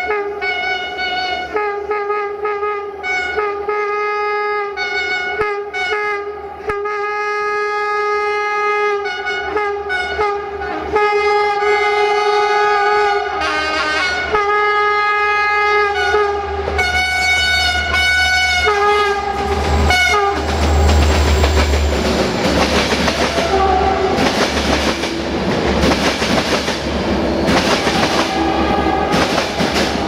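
Air horn of the GM-re-engined CFR diesel locomotive 65-1300-6 sounded in a long sequence of short toots and longer blasts, played like a tune. About twenty seconds in, the horn mostly stops and the locomotive's engine and wheels rumble loudly as the train passes close by, with a few more horn notes.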